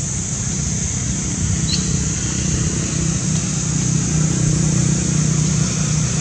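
Steady low rumble of a running engine, growing a little louder in the second half, under a constant high hiss; a single brief high squeak about two seconds in.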